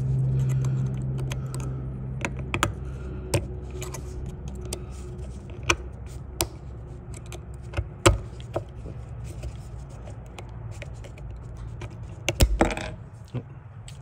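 Scattered small clicks and taps of a power seat switch's plastic housing and metal contact pieces being handled and pried apart, the sharpest click about eight seconds in and a short cluster near the end, over a low steady hum.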